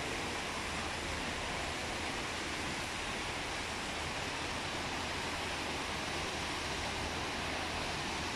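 Steady rushing of an indoor cascade fountain, water spilling down stepped stone tiers and a jet splashing into the pool below, mixed with the low hum of a large terminal hall.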